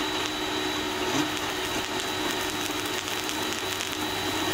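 VEVOR cold spark machine running and shooting a fountain of sparks: a steady high whine from its blower over an even rushing hiss.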